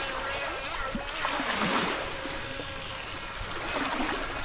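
Small lake waves lapping and washing at the shoreline, with a swell about one and a half seconds in. Under it, the thin steady whine of a small toy RC boat's electric motor out on the water fades out about halfway through.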